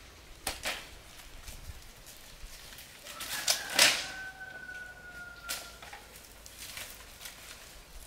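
A few sharp knocks, the loudest about four seconds in, and a long whistled bird call of about two seconds that falls slightly in pitch.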